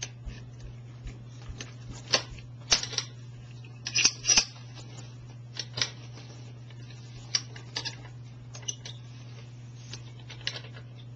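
Irregular sharp clicks and clacks of hard gear being handled, the loudest cluster about two to four and a half seconds in, over a steady low electrical hum.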